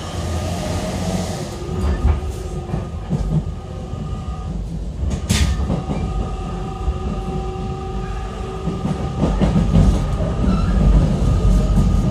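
Running sound inside the motor car of a JR Kyushu 813 series electric train at speed: a low rumble of wheels on rail under a steady electric motor whine of several held tones. A single sharp crack comes about five seconds in, and the rumble grows louder near the end.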